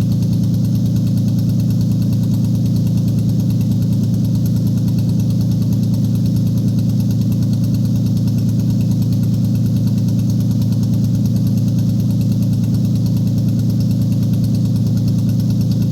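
Toyota 1GZ-FE 5.0-litre V12 engine idling steadily, with no revving.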